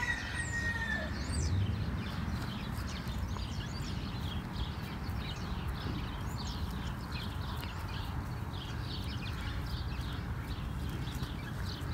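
Small birds chirping in quick, high notes over a steady low rumble.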